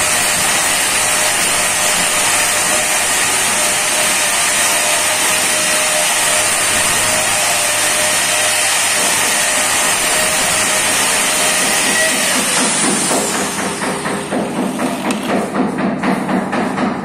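Electric angle grinder with a red sanding disc grinding the edge of a granite slab: a steady whine over a gritty hiss. About twelve seconds in it is switched off and the whine falls away as the disc spins down, followed by a fast run of short knocks.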